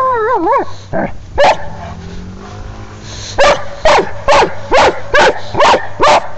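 A dog gives a wavering, whining howl, then two single barks, and after a short lull breaks into a run of loud barks at about two a second. It is barking at a bowling ball it cannot pick up, which the owner says makes it mad.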